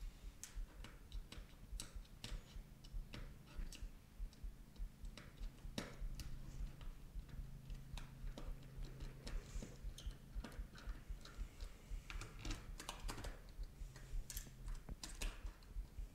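Faint, irregular clicks and taps of small plastic and metal parts and hand tools handled on a hard tabletop while a Sirius XM satellite radio is taken apart, with a faint low hum through the middle.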